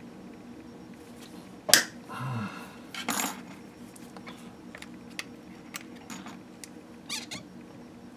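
A sharp snap about two seconds in as a wire pin is cut with pliers. Short squeaky scrapes follow as the pliers and pin work against the carved lure body, with a few light ticks later.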